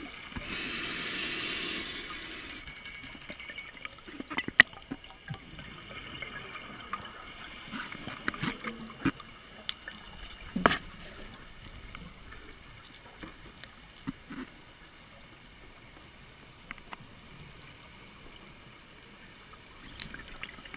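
Underwater sound of a diver's exhaled air bubbling out of the regulator twice, a long burst then a shorter one, while the diver breathes from a surface-supplied air hose. Scattered sharp clicks and knocks sound in between.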